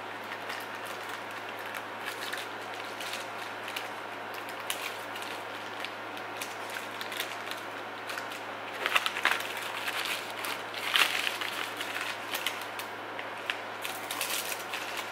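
Hands handling a plastic DNA swab tube and paper packaging: small clicks and crackles, with louder rustling about nine and eleven seconds in and again near the end, over a steady low hum.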